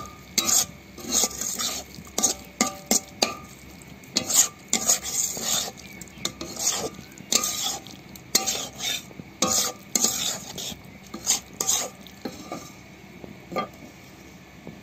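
A spatula stirring and scraping mutton liver pieces with fried onions and spices in a kadai, over the steady sizzle of frying. The strokes are irregular, about one or two a second, and stop about a second before the end.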